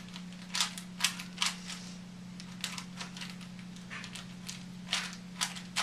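Rubik's Cube being scrambled by hand: its plastic layers turning with irregular sharp clicks and clacks, a few a second.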